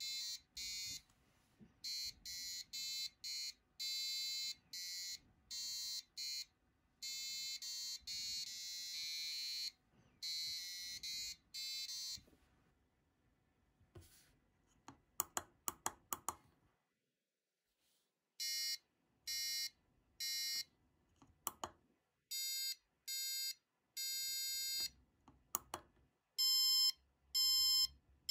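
The buzzer on an STC89C52 laser-harp kit board beeps out a halting tune of short electronic notes, sounding one note each time a laser beam is blocked. About halfway through comes a quick cluster of sharp clicks from the board's pitch-change push button being pressed, and then the notes carry on.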